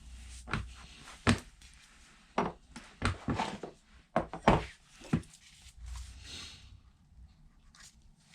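Metal motorcycle parts and tools being handled and set down during reassembly: a string of sharp knocks and clicks, about eight in all, with a short hiss near the end.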